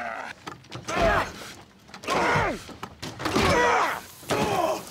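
A man's strained yells of effort, four in a row about a second apart, each sliding down in pitch, with heavy thuds landing under several of them.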